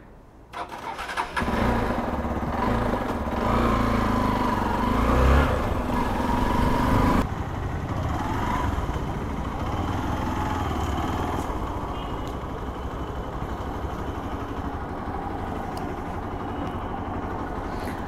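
Hero Xpulse 200 motorcycle's single-cylinder engine starting about half a second in and running with its pitch rising and falling. About seven seconds in the sound changes abruptly to a quieter, steady engine-and-road noise as the bike rides along.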